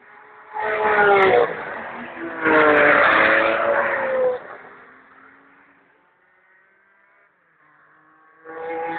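Sports car engine at full throttle on a track, revving up and then dropping in pitch about a second in. A second loud rise comes as the red mid-engined car passes, then it fades away. Near the end another car's engine comes up loudly.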